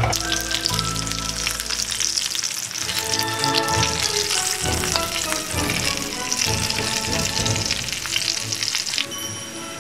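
Food sizzling and spattering in a hot frying pan, over light background music; the sizzle drops away sharply about nine seconds in.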